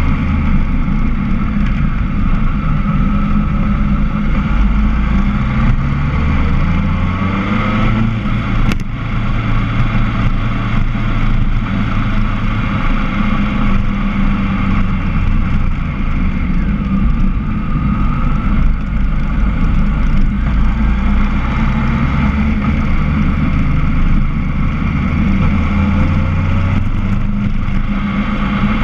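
Motorcycle engine running as the bike rides down a winding road, its note shifting up and down through the bends with a couple of rising revs. A sharp click about nine seconds in.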